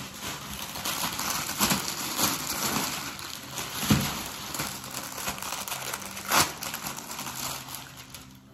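Plastic garment packaging crinkling and rustling as clothing is handled and pulled out of a shipping box, with two sharp knocks, about four and six seconds in.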